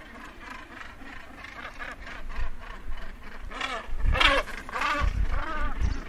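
Northern gannets calling at a breeding colony: harsh, rasping calls, several overlapping, growing louder after about four seconds, with a low rumble underneath.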